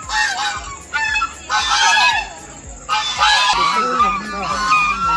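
Flock of white domestic geese honking, several harsh, overlapping honks coming in bursts.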